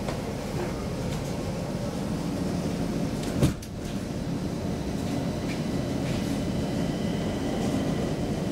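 Inside a C20 metro car at the platform: a steady low rumble from the standing train, with one loud thump about three and a half seconds in as the sliding doors shut. A faint steady high tone joins about two seconds later.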